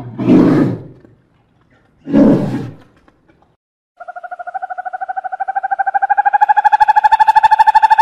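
Brown bear growling twice, each call short and deep, about two seconds apart. From about four seconds in, a bird's rapid trilling call starts and holds on, rising slightly in pitch.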